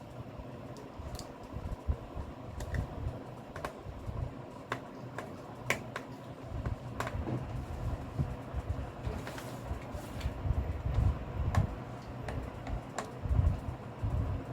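Small screwdriver working at the tiny screw holding the M.2 SSD slot in a laptop: scattered light metallic clicks and taps as the tool meets the screw and chassis, with low handling bumps. The screw will not come loose.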